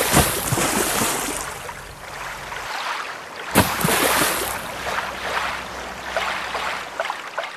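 Rushing, splashing water with sharp splashes through it, surging louder again about three and a half seconds in.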